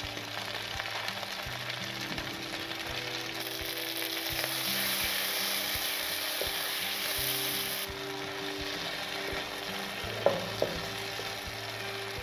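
Vegetables frying and sizzling in a nonstick wok while a wooden spatula stirs them. The sizzle grows louder and brighter from about three seconds in until about eight seconds in. Two sharp knocks come close together about ten seconds in.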